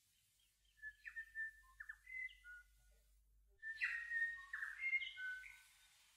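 Faint bird song: two short phrases of clear whistled notes mixed with a few harsh, rasping notes, the first about a second in and the second a little past the middle.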